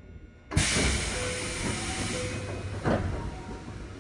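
A sudden loud hiss of compressed air starts about half a second in and keeps going steadily. It is air being let out of the pneumatic system of a stopped Keikyu 1500 series electric train, heard from inside the car.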